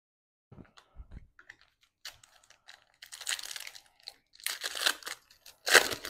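Foil wrapper of a Panini Absolute football card pack crinkling and tearing as the pack is opened and the cards pulled out, in several bursts with the loudest near the end. Softer card handling comes before it.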